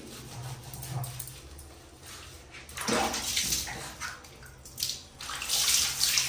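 Water splashing and pouring while a Shih Tzu is bathed. It comes in bursts from about three seconds in and gets heavier near the end.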